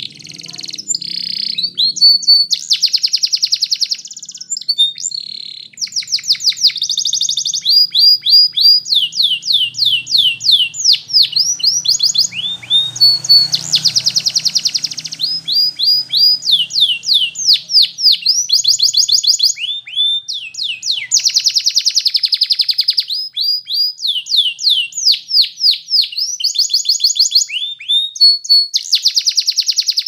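Domestic canary singing a long, loud song of rapid trills: each phrase repeats one fast note or sweep for a second or two, then switches to another, with a few short pauses.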